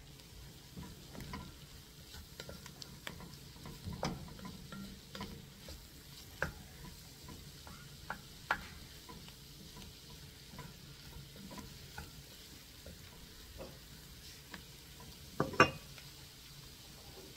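Wooden spoon stirring and scraping diced celery, carrot and onion in an enamelled cast-iron pot as flour is cooked into the butter and vegetables, with a faint sizzle and scattered light clicks of the spoon. A sharper double knock comes near the end.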